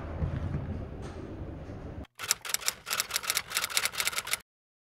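Fading background noise, then after a sudden cut about two seconds of rapid, sharp clicking like typewriter keys, which stops abruptly.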